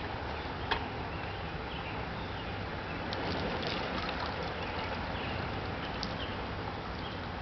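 Restored Dempster No. 2 pitcher pump being worked by hand, with a steady rush of water from its spout and a few sharp clicks.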